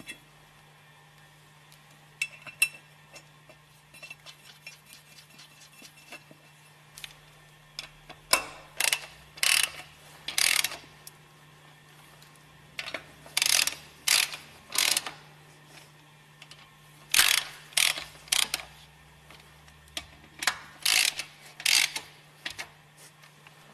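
Socket ratchet wrench clicking in short rapid bursts, four groups in the second half, as hex head screws are tightened to bolt down the operating water feed system of a Westfalia separator.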